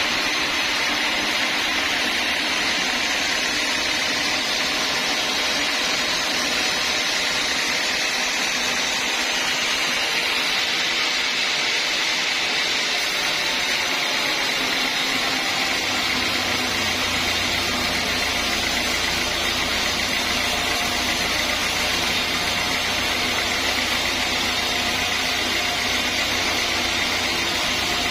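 Sawmill saw running steadily, a loud, even mechanical whine and rush with no breaks; a deeper hum joins a little past halfway through.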